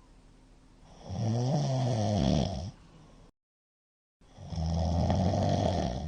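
A middle-aged man snoring very loudly: two long, low-pitched snores a few seconds apart, with a moment of dead silence between them. The sleeper puts the heavy snoring down to having drunk too much.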